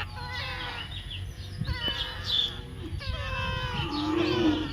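Baby parrot calling: a run of short, high, downward-sliding cries, repeated over and over, with a whining, mewing quality.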